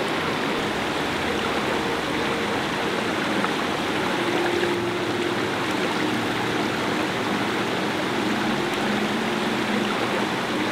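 Shallow creek water rushing steadily over rocks.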